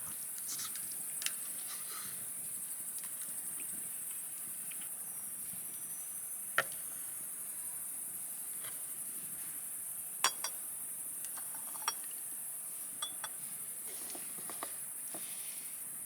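Insects, likely crickets, chirring steadily in a high-pitched band, with a few scattered sharp clicks.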